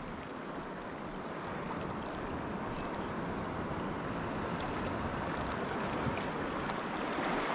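Steady wash of small waves and moving water, growing a little louder, with a few faint high ticks.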